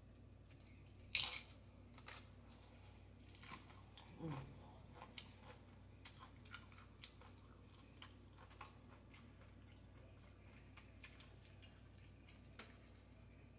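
A mouthful of taco salad with crisp tortilla chips being chewed close to the microphone. The loudest crunch comes about a second in, followed by sparser, softer crunches and wet mouth clicks. About four seconds in there is a brief low throat sound that falls in pitch.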